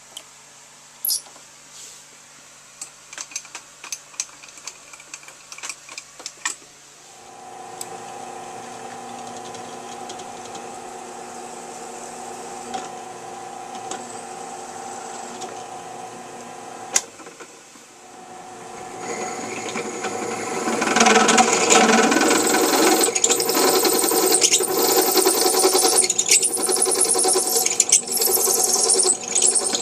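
Metal parts clink and knock as they are handled. About seven seconds in, a machine-tool motor starts and runs with a steady hum. From about nineteen seconds, a much louder metal-cutting noise builds up as the tool cuts into steel.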